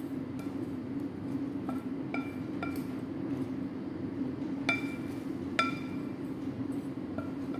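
Wooden salad tongs knocking against a glass mixing bowl while tossing sliced mushrooms and vegetables: about seven irregular ringing clinks, the loudest two around the middle, over a steady low hum.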